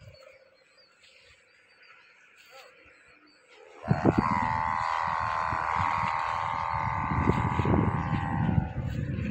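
Sendaren (kite hummer) on a pegon kite droning in the wind, a snoring hum of several steady tones that starts about four seconds in, with irregular low rumbling underneath. The hum fades near the end.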